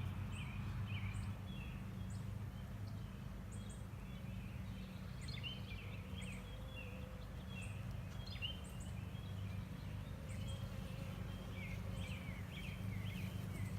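Steady low hum of a mass of honeybees from an open, freshly smoked hive box, with many short bird chirps throughout.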